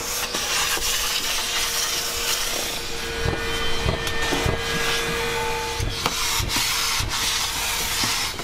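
A vacuum cleaner runs steadily with a constant hum and a rush of air, while hands and a protective suit rub against truck-cab surfaces during cleaning. From about three seconds in, light knocks and clicks are heard.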